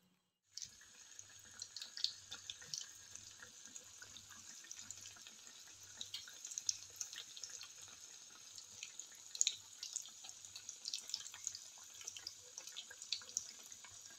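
Lumpiang Shanghai (pork-and-beef spring rolls) deep-frying in a pan of hot oil: a steady sizzle with frequent small crackles and pops, starting about half a second in.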